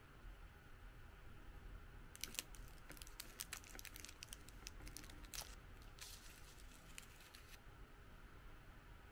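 Faint crinkling and snipping as scissors cut open a thin plastic snack wrapper, a quick run of crackly clicks and rustles lasting a few seconds that stops well before the end.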